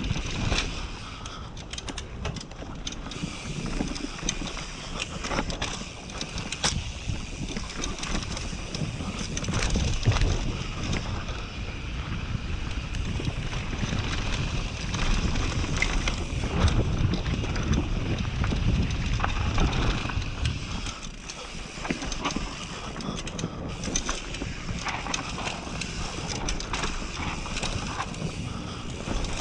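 Mountain bike ridden fast down a dry dirt trail: tyres running on loose dirt, and the bike rattling over bumps with many short clicks and knocks. Wind rushes over the microphone throughout.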